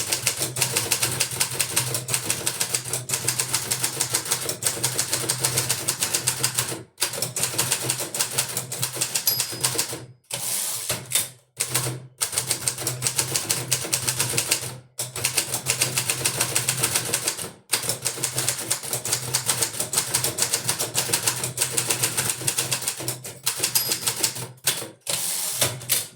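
1959 Hermes 2000 manual portable typewriter being typed on fast: a dense run of key strikes clacking against the platen, broken by a few short pauses.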